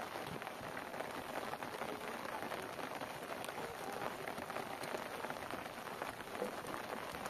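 Steady rain falling: an even hiss of many drops with scattered small ticks.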